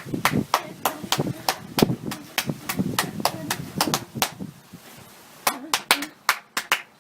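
Hand clapping: uneven claps at first, then after a short lull a steady beat of about four claps a second near the end.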